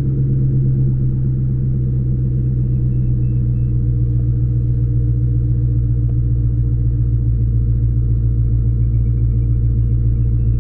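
Dodge Charger's Hemi V8 engine running steadily with an even low hum.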